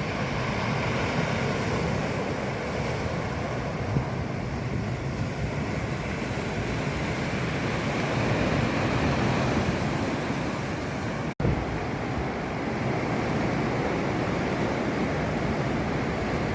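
Sea waves washing and breaking on the shore as a continuous surf noise, cut by a brief dropout about eleven seconds in.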